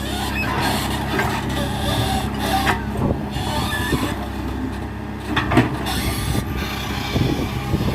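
Excavator's diesel engine running steadily, with intermittent knocks and scrapes from the machine at work.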